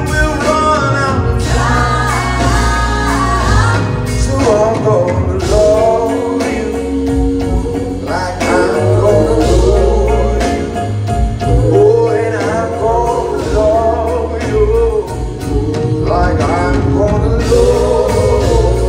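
Live soul-pop ballad: a male lead singer's voice, wavering through long sung notes, over a band with electric guitar and a steady bass line, amplified through a large hall's PA.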